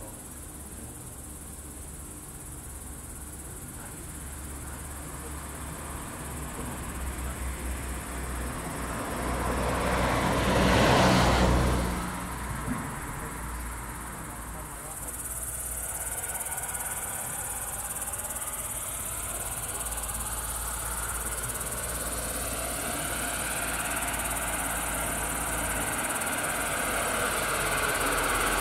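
Outdoor night ambience in which a vehicle passes, rising and falling and loudest about eleven seconds in. Another engine sound builds slowly over the second half.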